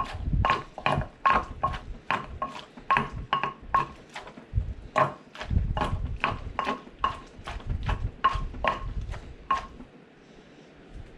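Pestle pounding salad in a mortar: steady knocks, about three a second, each with a short ring. The pounding stops about a second before the end.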